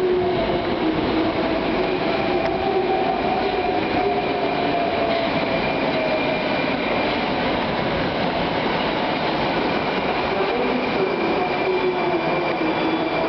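Moscow metro 81-760 "Oka" train running through a station: a steady rumble of wheels on rail with a traction-motor whine that slowly falls in pitch, and new rising whine tones coming in about ten seconds in.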